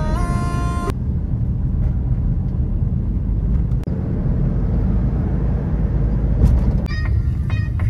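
Steady low road and engine rumble inside a moving car's cabin. A few held notes of music cut off about a second in, and music comes back in near the end.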